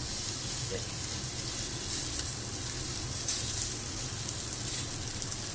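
Tied blocks of pork belly sizzling as they sear fat side down in an unoiled frying pan over high heat, with a few brief crackles.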